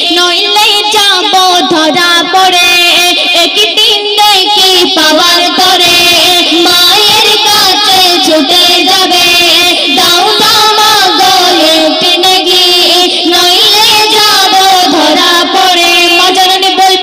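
Female voices singing a Bengali Islamic gazal, amplified through stage microphones, in long wavering held notes.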